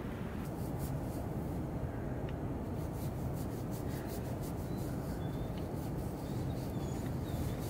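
Faint rubbing and rustling of a tissue being wiped over the face, over a steady low rumble, with a few faint high chirps in the second half.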